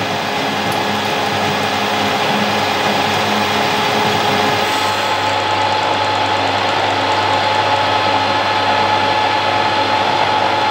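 Harrison M300 metal lathe running at 540 RPM, turning a mild steel shaft with an indexable carbide insert tool taking a 3 mm cut. It makes a steady machine hum and whine with the noise of the cut, and the chips break off in small sections.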